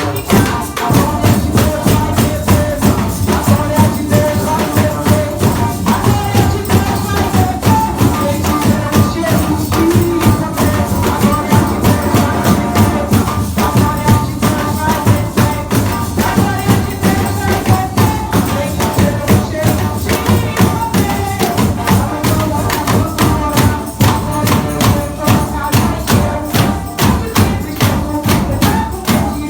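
A band playing music led by its percussion section, with rapid, steady drum and hand-percussion strokes under a wavering melody line.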